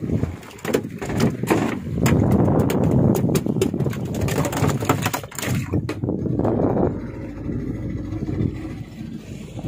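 Rushing wind and water noise on a small boat at sea, with frequent short knocks and crackles. It settles to a quieter, steadier low rumble about seven seconds in.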